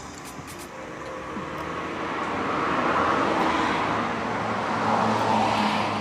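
Road traffic: vehicles passing by, a rushing noise that swells and fades twice.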